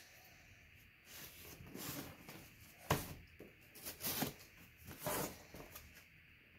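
Box cutter slitting the packing tape on a cardboard box: irregular scraping and tearing strokes. A few sharp knocks come as the box is handled and tipped up.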